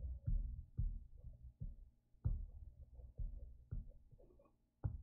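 A string of soft, irregular low thumps, about one every half second, over quiet room tone.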